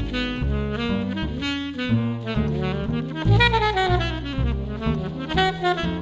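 A 1968 Selmer Mark VI alto saxophone plays a jazz melody, with runs of notes that climb and fall. A bass line plays low notes underneath.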